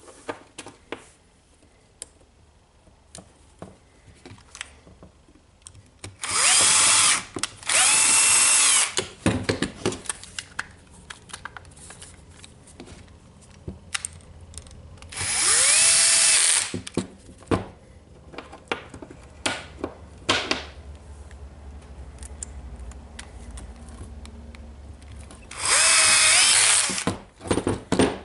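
Cordless drill motor run in four short bursts: two back to back, then one, then one more near the end. Each burst whines up to speed, holds for about a second and winds down, with small clicks and knocks of handling between runs.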